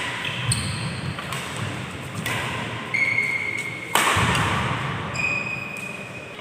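Badminton rackets hitting a shuttlecock in a fast doubles rally: about eight sharp hits, echoing in a large hall, some followed by a brief high ring.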